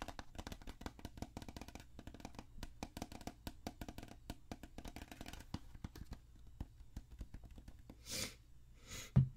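Fingernails tapping rapidly on a small plastic bottle held close to the microphone, a quick run of sharp clicks that thins out after about six seconds. A short hiss comes about eight seconds in, and a dull thump, the loudest sound, just before the end.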